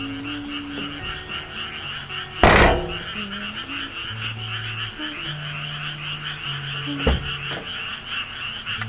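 A chorus of frogs croaking, a steady pulsing trill, with a loud slam about two and a half seconds in as a van's rear hatch is shut and a lighter knock near seven seconds. Soft background music with long held low notes runs underneath.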